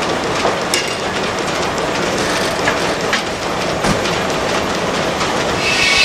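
Steam-powered sawmill machinery running, with the log carriage clattering along its track and scattered knocks. Near the end a high whine sets in as the circular head saw begins to cut the log.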